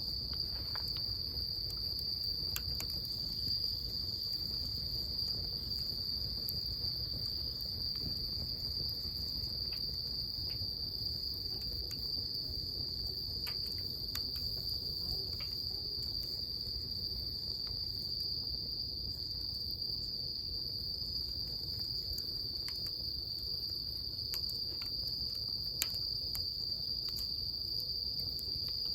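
Insects trilling in one steady, unbroken high chorus, over the low rumble of a wood bonfire that gives scattered sharp pops and crackles.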